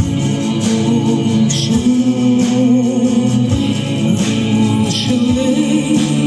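Live concert music: held instrumental chords with choir-like voices, some of the long notes carrying vibrato.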